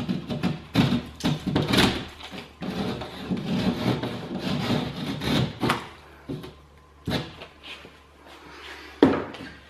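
Stanley knife blade scraping and cutting along the edge of a hole in plasterboard in repeated short strokes, trimming the opening. The strokes then give way to a few separate sharp knocks, the loudest near the end.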